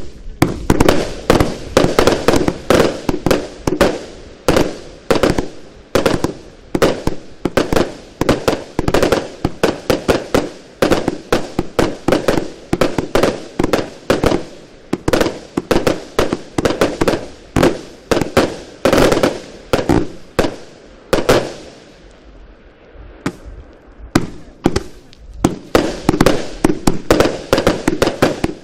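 Compound firework cake firing a continuous barrage: a rapid run of launch thumps and sharp aerial bursts, several a second. About three-quarters through the firing thins out briefly, then picks up again.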